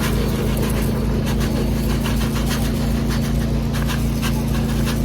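A steady low motor hum, like an engine idling, under a crackling sizzle of onions and mushrooms frying in a pan on a camp stove.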